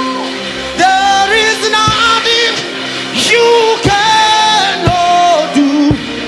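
Live gospel worship music: a solo voice singing long, held, sliding notes over sustained instrumental chords.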